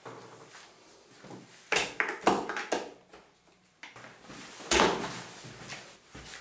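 Scattered knocks and clunks: a quick cluster about two seconds in and a single heavier one near five seconds.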